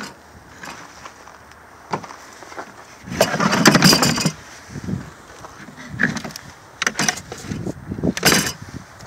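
Scrap metal car parts being handled and shifted: scattered clanks and knocks, with a longer scraping rattle about three seconds in.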